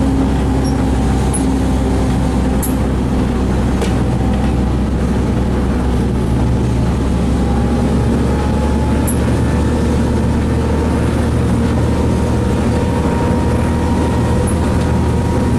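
GE 70-ton diesel-electric switcher locomotive heard from inside its cab while rolling along the track: a steady diesel engine drone mixed with wheel-on-rail noise, with a few faint clicks.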